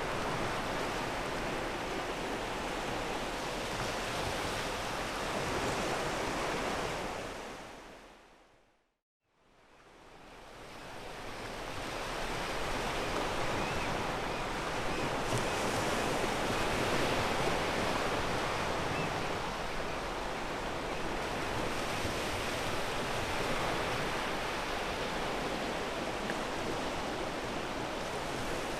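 Ocean waves washing onto a pebble beach, a steady surf. About eight seconds in the sound fades to silence for a moment, then swells back in over a few seconds.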